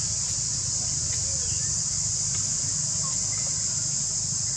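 Steady, high-pitched drone of a chorus of insects, with a low rumble underneath and a few faint, short chirps.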